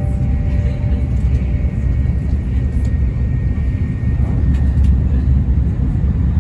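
Steady low rumble of an N700-series Shinkansen train running, heard from inside the passenger car. The last notes of the in-car chime fade out in the first second.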